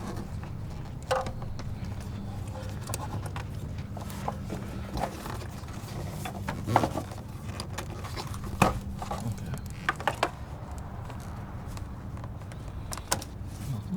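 Scattered clicks and knocks of a screwdriver and hand tools working loose a Mazda Miata's plastic air box in the engine bay, over a steady low hum.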